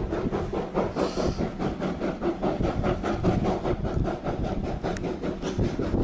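Train running on the rails: a steady, rapid rhythmic clatter over a continuous rushing noise.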